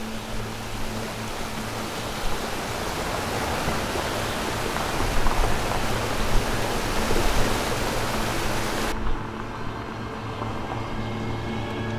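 A steady rushing hiss, like wind or rain, swells through the middle and cuts off abruptly about nine seconds in. Underneath it, music holds low sustained notes and carries on alone after the hiss stops.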